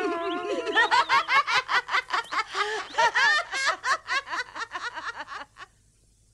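Two boys laughing and snickering together, a quick run of ha-ha sounds that dies away about five and a half seconds in.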